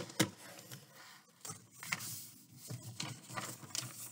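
Sheet of paper being handled and rustled, with scattered light clicks and taps and one sharper click just after the start.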